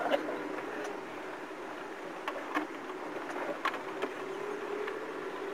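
Land Rover engine running steadily with a low hum, along with a few sharp clicks in the second half.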